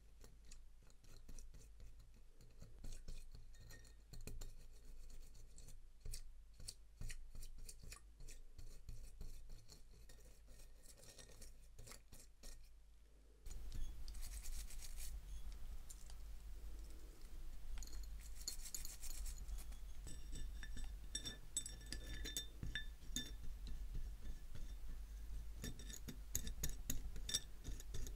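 Close-up hand work on a wristwatch: irregular small clicks, light scrapes and metallic clinks of tools and small watch parts. About halfway through, a low background hum steps up and the clinks turn brighter.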